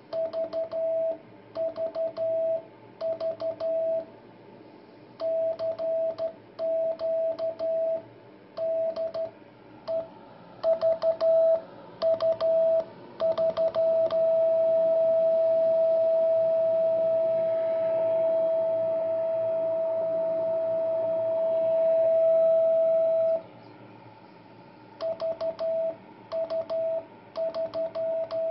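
Morse code CW tone from a homebrew CW receiver as a handmade brass straight key keys an Si5351 oscillator: one steady tone in short and long beeps, with a click at the start and end of each. About 14 seconds in, the key is held down for a continuous tone of about nine seconds, then the short and long keying resumes.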